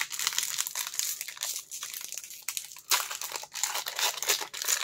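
Foil wrapper of a Pokémon trading card booster pack crinkling and tearing as it is ripped open and peeled off the cards, an irregular continuous crackle.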